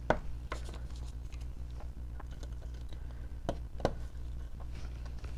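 Scattered light clicks and taps, like small parts being handled on a workbench, loudest just after the start and twice about three and a half seconds in, over a steady low electrical hum.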